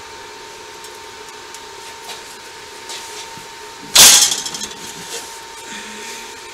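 A single sharp metal clank about four seconds in, ringing briefly, from metal knocking against the steel workpiece on the bench, with a few faint ticks around it. A steady faint hum runs underneath.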